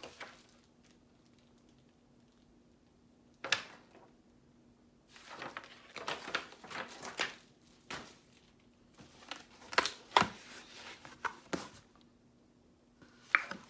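Paper sheets and a flat corrugated cardboard box being handled and unfolded: bouts of rustling with sharp cardboard clicks and knocks, between quiet stretches.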